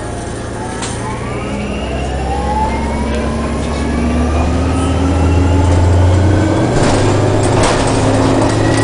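City bus under way, heard from inside the passenger cabin: a low rumble with a drivetrain whine that rises in pitch as the bus gathers speed, growing louder over the first six seconds. A couple of short knocks come near the end.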